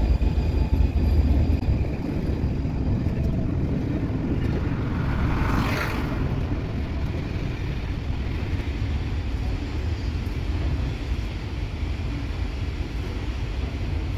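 Pullman coaches of a steam charter train rolling slowly past on the rails, a steady low rumble, with a brief hiss about five and a half seconds in.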